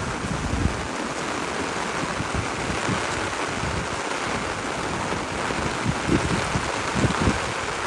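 Heavy rain falling steadily, a dense even hiss, with a few brief low thumps in the second half.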